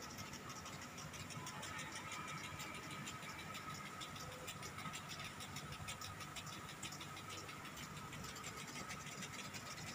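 Sprinklers watering a grass football pitch, heard from the stands: a faint steady spray with fine, irregular ticking and a low steady hum underneath.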